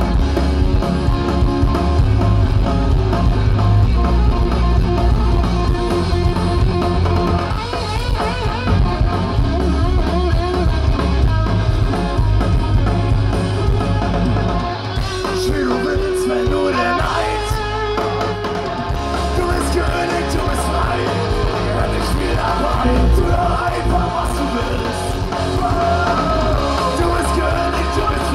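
German rock band playing live through a festival PA, with distorted guitars, drums and a sung lead vocal, heard from among the crowd. About halfway through the band drops to a lighter passage without the heavy low end for a few seconds, then comes back in full.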